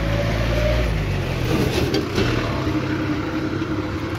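Street traffic with a motor vehicle engine running, a steady low hum under the general road noise.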